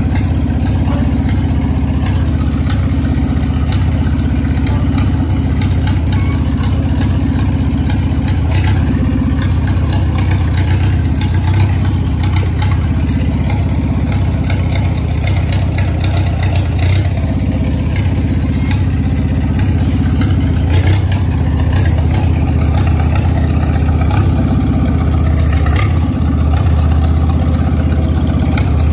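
International Harvester Farmall tractor engine running steadily, heard close up from the driver's seat.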